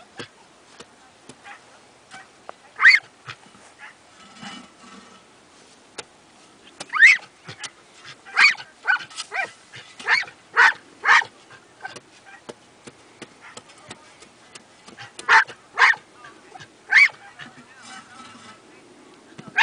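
Glen of Imaal Terrier barking in short bursts: a single bark, then a quick run of about six barks, then three more.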